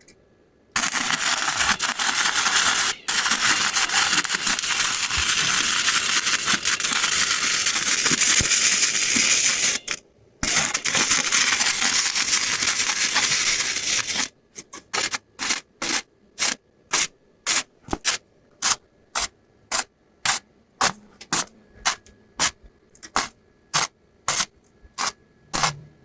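Wire-feed welder arc crackling and hissing on thin exhaust tubing: two long runs of several seconds, then a string of short trigger pulses, about two a second.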